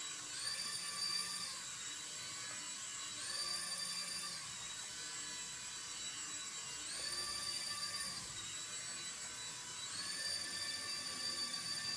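Whine of a hand-controlled toy helicopter's small electric rotor motors as it hovers. The pitch steps up and falls back four times, each time for about a second and a half, as the motors speed up and slow down.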